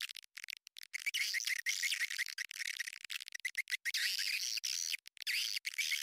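Swiftlet lure call: a recording of edible-nest swiftlets twittering in fast, high-pitched chirping trills, cut by short sudden gaps. It is the kind of call played at a swiftlet house to draw birds in to roost and nest.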